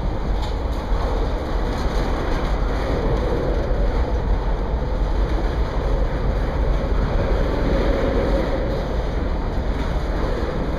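Train of black tank cars rolling past, a steady rumble of steel wheels on the rails.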